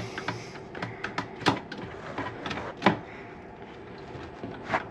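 Scattered plastic clicks and knocks from hands pushing down on a toilet tank's fill valve, the sharpest about a second and a half in and again just before three seconds.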